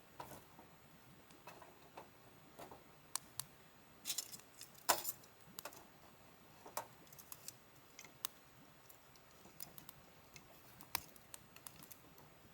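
Wood campfire crackling: scattered sharp pops and snaps at irregular intervals, a few louder ones about a third of the way through.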